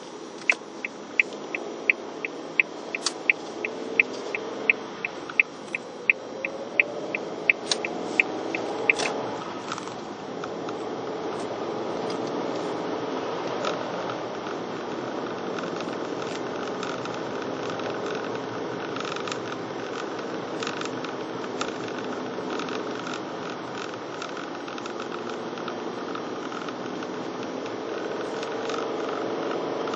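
A car's turn-signal indicator ticks evenly, about two to three times a second, and stops about nine seconds in. Meanwhile the engine revs up as the car pulls away and turns. After that there is steady engine and tyre noise, heard inside the cabin.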